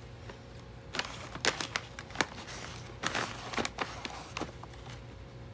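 Packaging crinkling and rustling in scattered, irregular crackles and clicks as a cat noses and pushes through an opened box of bagged treats and toys.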